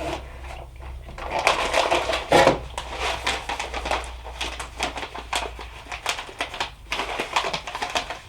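Plastic snack packaging crinkling and rustling as it is handled and opened, with a sharper crackle about two and a half seconds in.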